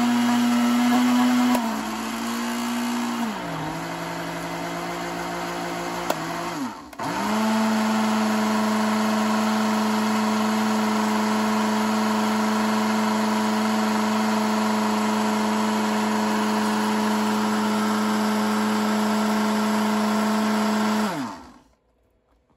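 Countertop blender motor running with a full glass jar of papaya juice, its steady hum dropping in pitch twice in the first few seconds. It cuts out briefly about seven seconds in, starts again and runs steadily, then is switched off near the end and winds down to a stop.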